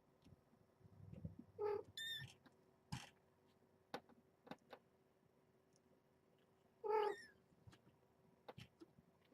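Cats mewing: one mew about one and a half seconds in, followed at once by a short high squeak, and another mew about seven seconds in. A few small clicks and knocks fall between them.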